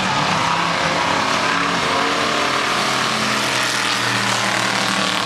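Pure stock race cars' engines running hard together, a steady mixed engine noise. One car grows louder as it passes close about four seconds in.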